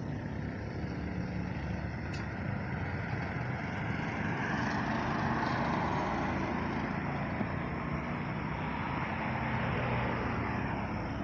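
Road traffic on a main road: steady engine and tyre noise from passing cars and motorcycles, swelling around the middle as a car goes by close.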